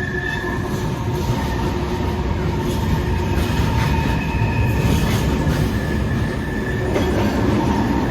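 Train passing close by: steady rumble of wheels on the track, with thin high squealing tones from the wheels throughout.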